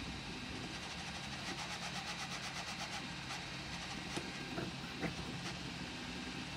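SparkX i7 3D printer printing: a steady low hum with a fast, even run of pulses as the print head moves, then a few sharp ticks about four and five seconds in.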